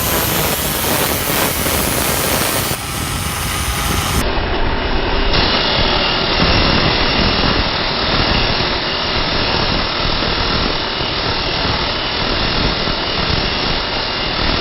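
Angle grinder with a sanding disc grinding a wooden boat deck back to bare wood, running loud and steady with the disc scouring the surface.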